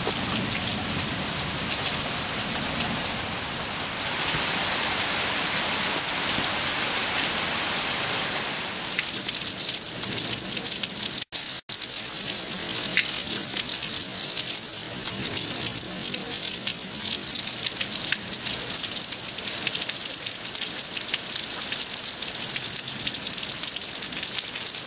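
Heavy thunderstorm rain pouring steadily, with the low rumble of fading thunder underneath in the first several seconds. The sound cuts out twice, briefly, near the middle; afterwards the rain comes with sharper drips and splashes.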